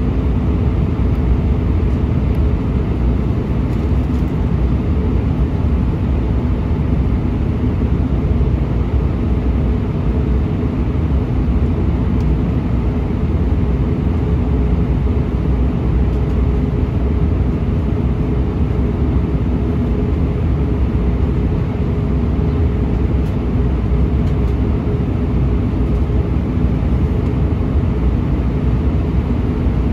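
Steady cabin drone of an Airbus A320-232 in flight, heard from a window seat over the wing: the IAE V2500 turbofans and the rush of air over the fuselage make an even, deep noise, with a faint steady tone underneath.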